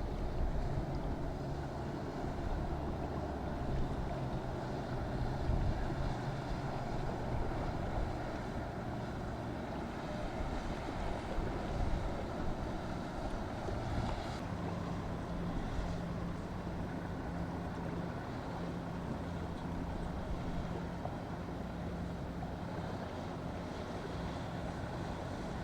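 Boat engines running, with steady wind noise on the microphone and surf. About halfway through, a slightly higher steady engine note takes over.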